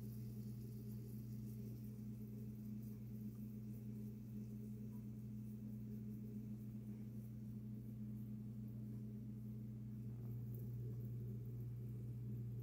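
A steady low hum, two pitches held unchanged, over a faint hiss.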